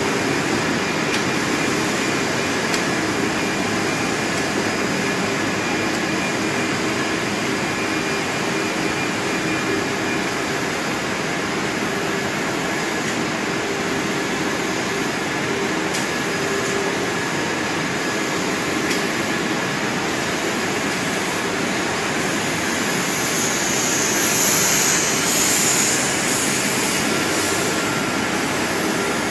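Steady running noise of a UV roller coating line: coating rollers, conveyors and fans, with a steady hum and a faint whine. Near the end a louder high hiss swells for a few seconds and then eases off.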